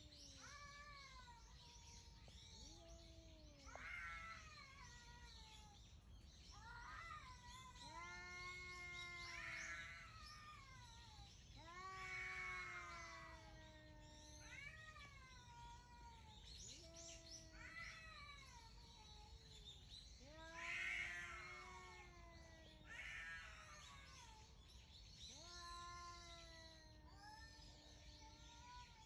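Cats yowling: a long run of faint, drawn-out, wavering yowls, one every two or three seconds.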